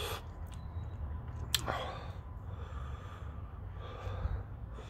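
A man breathing out hard, twice, easing the burn after eating a hot Scotch bonnet pepper: a sharp mouth click and an exhale about one and a half seconds in, then another exhale near four seconds. A steady low rumble runs underneath.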